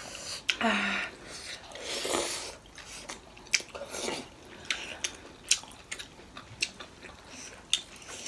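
Eating sounds of momos in chilli sauce: chewing and slurping, with spoons and forks clicking sharply against ceramic plates several times.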